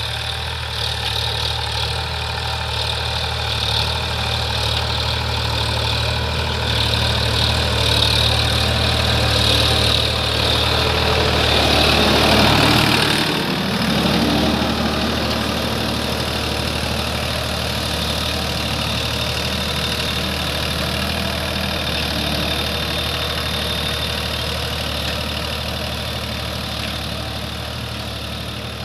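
Sonalika DI 47 RX tractor's diesel engine running steadily under load while pulling a tine cultivator through soil. It grows louder for a few seconds around the middle as the tractor comes close, then settles back to a steady level.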